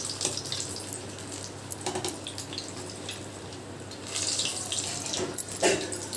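Batter-coated bitter gourd chops deep-frying in hot oil in a steel kadai: a steady sizzle full of fine crackling pops. A few louder scrapes come from a wire spider strainer moving in the pan as the chops are turned over.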